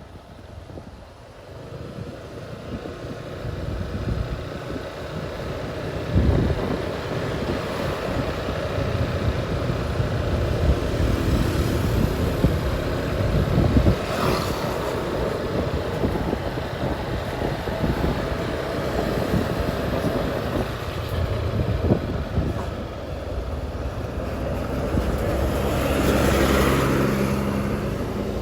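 Large tour bus's diesel engine running close by, getting louder over the first several seconds and then holding steady, with a short hiss about halfway through and another near the end.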